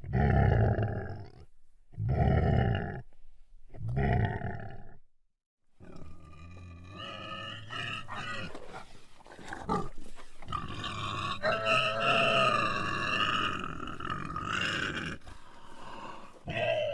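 Domestic pig grunting: three loud grunts about two seconds apart, then after a short pause a nearly continuous run of grunts and higher, wavering calls.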